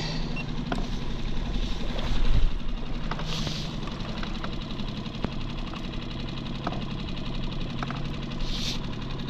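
Skiff's outboard motor running steadily at a low idle, with a few light clicks over it.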